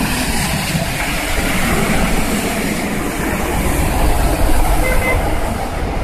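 Heavy rain and passing traffic on a waterlogged street: car and minibus tyres hissing and spraying through standing water, over a steady low rumble.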